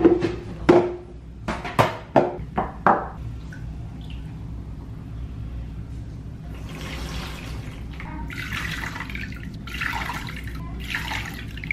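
A few clinks and knocks of a metal colander and plastic containers being handled, then bone broth being poured through a stainless steel mesh colander into a plastic tub, splashing and trickling in uneven pours.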